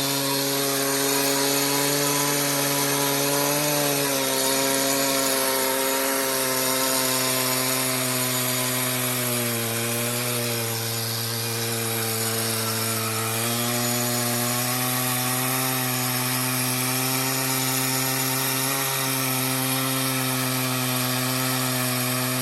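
Chainsaw running at full throttle in an Alaskan chainsaw mill, ripping a 2-inch slab lengthwise through a cedar log. The engine note is steady, sagging slightly in pitch a few times as the bar loads up in the cut.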